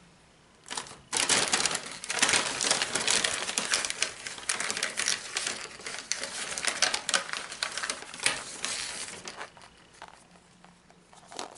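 Paper gift bag rustling and crinkling as a hand rummages inside it for the next plastic egg: a dense run of small crackles and ticks starting about a second in, thinning and dying away near the end.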